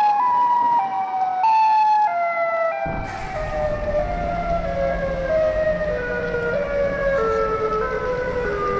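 Tornado warning siren wailing, its tone slowly falling in pitch in small steps. A low steady noise joins it about three seconds in.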